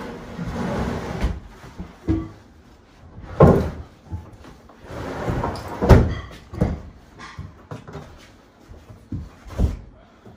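Quartz countertop slab being set down and shifted into place on base cabinets: a handful of dull knocks and thuds, the loudest about six seconds in, with stretches of rubbing as the stone is moved.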